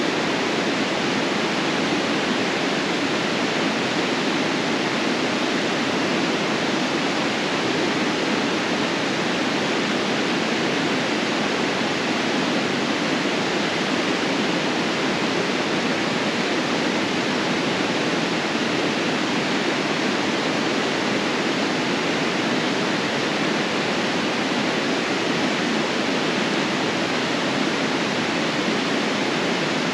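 River in flood rushing steadily, a continuous, even roar of water.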